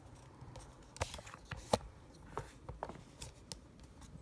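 Handling noise from a phone camera and small objects being repositioned: a scattering of light clicks and knocks, one louder knock a little under two seconds in.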